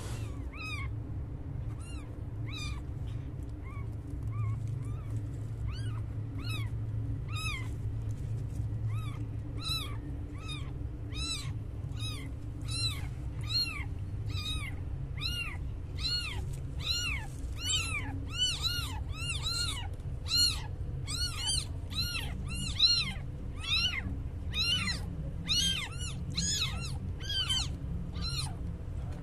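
A newborn kitten mewing over and over in short, high-pitched squeaks, a little after its birth. The calls come about one a second at first and quicken to about two a second, over a low steady hum.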